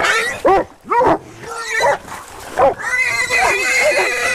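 Wild hog squealing over and over: a string of short squeals that rise and fall in pitch, then one longer drawn-out squeal near the end. These are the squeals of a hog caught and held by hunting dogs.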